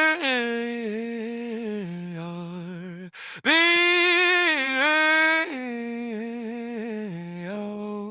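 A single unaccompanied voice humming a slow melody of long held notes that step downward, sung twice with a brief break between the two phrases.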